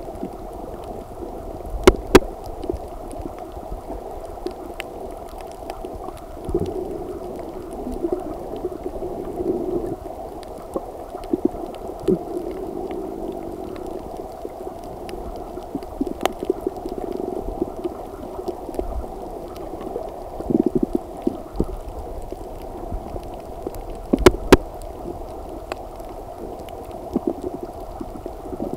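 Muffled underwater noise picked up by a camera held below the surface: a steady dull rush of water with scattered sharp clicks and knocks, the loudest about two seconds in and again later on.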